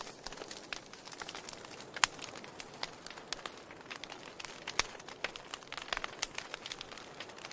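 Wood fire crackling: a steady hiss under dense, irregular snaps and pops, with a couple of sharper pops about two seconds in and near the five-second mark.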